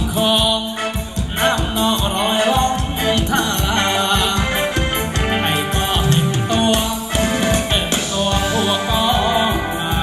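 Live band playing ramwong, Thai folk circle-dance music, loud through a large PA, with a singer's voice over a steady beat.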